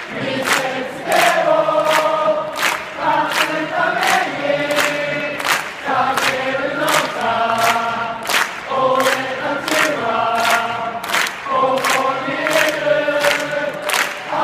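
A large crowd of football supporters singing a chant in unison, with rhythmic hand claps about twice a second.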